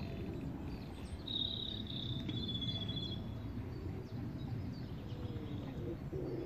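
A steady low rumbling background noise, with a small bird singing a high, trilling phrase from about a second in for roughly two seconds.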